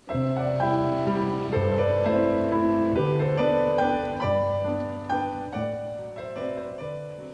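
Background music led by piano, with chords changing every second or so and the music growing softer toward the end.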